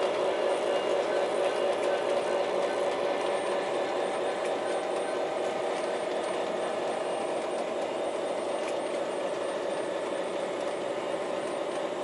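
O gauge model freight train running along the yard track: a steady sound of wheels on rails and motor, slowly growing fainter as the train pulls away.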